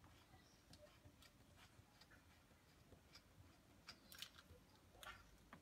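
Near silence with a few faint ticks and scrapes of a coaxial F connector being twisted by hand onto the threaded back of a TV wall plate socket.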